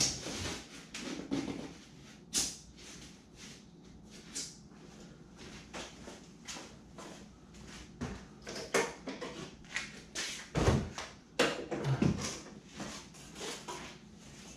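Irregular knocks, clicks and clatter of tools and clamps being picked up and set down, a few a second, with a heavier thump about ten seconds in and another near twelve seconds.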